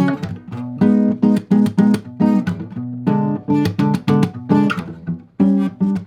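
Guitar playing a run of B-type chords, mostly plucked one after another at about three or four a second, each ringing briefly, with a short break about five seconds in.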